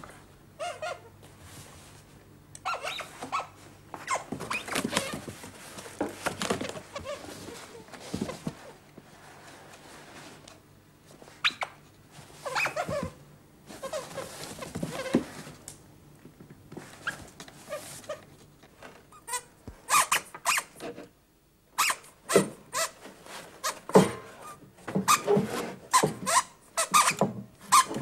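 Squeaky, animal-like nonsense vocalising from small puppet creatures, in short bending calls. From about two-thirds of the way in it gives way to a quick run of sharp knocks and rustles, loudest near the end.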